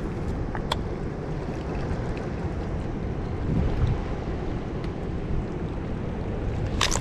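Steady low rushing of wind on the microphone and water from a dam spillway, with a few faint clicks early and a sharper click just before the end.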